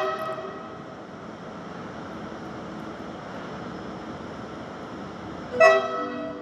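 Short train horn blasts: one fading out at the very start and a second about five and a half seconds in, each a sharp chord of several tones dying away within about half a second, over a steady background hum of the station.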